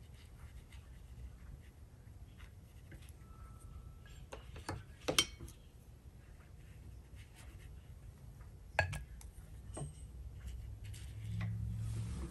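Quiet brushwork over a faint low hum, with two sharp light clinks of a brush against a dish about five and nine seconds in, and small scattered ticks.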